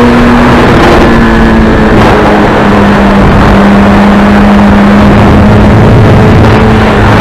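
Kawasaki ZX-6R's inline-four engine running hard at speed, heard from a camera on the bike with heavy wind noise. The engine note drops a little about two to three seconds in and then holds steady as the bike slows into a bend.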